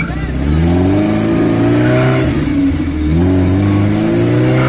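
4x4 off-road vehicle's engine revving hard twice. The pitch climbs and holds, falls back about two seconds in, then climbs again.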